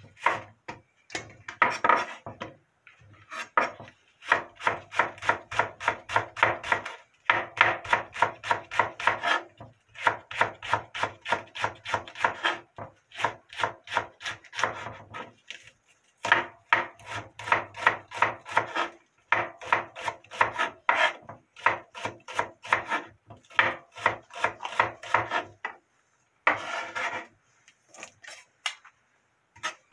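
Chef's knife rapidly slicing a green onion into thin rings on a wooden cutting board: quick, even knocks of the blade on the board, about five a second, in runs of a few seconds with short pauses between.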